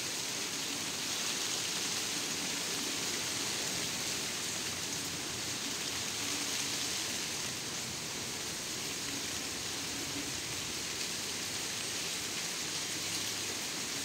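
Steady rain falling on grass and leafy plants: an even, unbroken hiss.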